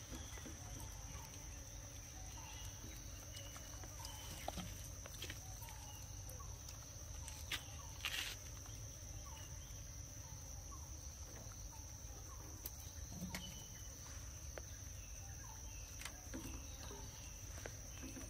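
Quiet outdoor ambience: a steady, high-pitched insect drone, with faint short chirps and a few scattered clicks over a low background rumble.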